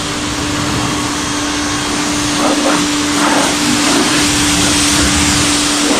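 Electric pressure washer running, its motor humming steadily under the hiss of the water spray.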